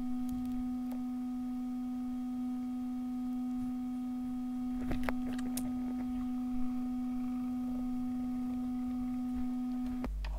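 A steady, low electronic tone, one pitch with faint overtones, held unchanged and then cutting off suddenly near the end, with a few faint clicks partway through.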